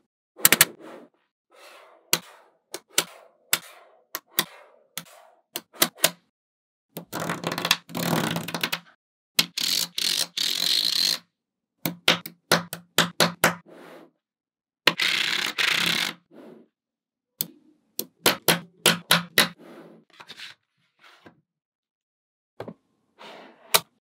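Small magnetic balls clicking and snapping together in quick sharp clicks, with a few longer rattling stretches of one to two seconds as clusters of balls roll and clatter against each other.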